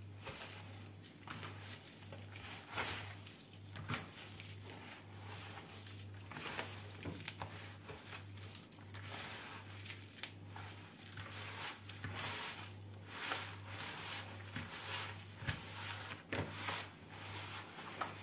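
Hands kneading a wet ground-meat köfte mixture in a plastic bowl: irregular soft squishes and pats, with a faint steady low hum underneath.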